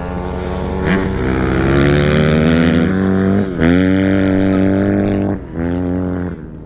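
Dirt bike engine under hard acceleration, its pitch climbing. It drops briefly at gear changes about three and a half and five and a half seconds in, then fades near the end.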